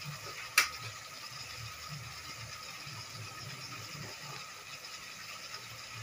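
Plastic spice jars being handled: one sharp click about half a second in, then faint twisting of a plastic jar cap.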